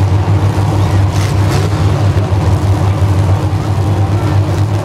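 Demolition derby cars' engines running together in a loud, steady low rumble.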